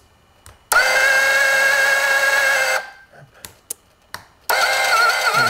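Small electric motor of a model submarine's bow-plane drive whining steadily for about two seconds, then, after a few clicks, running again with a wavering pitch, moving the bow planes up.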